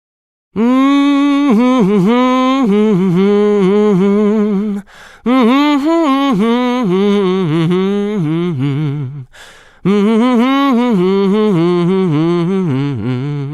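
A man humming a wordless, improvised tune in three phrases, each opening on a held note and running into quick, bouncing notes, with short pauses for breath between them.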